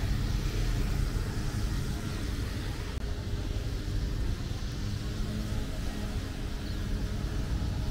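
Road traffic: car engines running steadily on the street.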